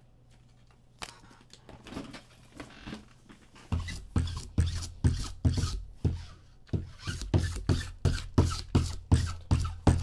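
Sticky lint roller being rolled back and forth, a rasping stroke about two to three times a second that starts a little under four seconds in, after a few quieter handling sounds.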